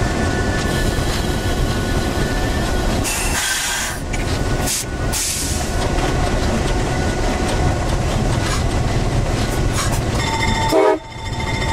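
EMD Geep diesel locomotive running down the line, its engine and wheels on the rails making a steady rumble, with brief bursts of hiss a few seconds in. Near the end its air horn blows for a grade crossing, with a short break in the middle.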